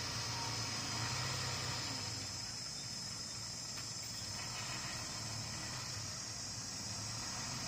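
A heavy construction machine's engine running with a low, steady rumble, under a continuous high-pitched chirring of insects.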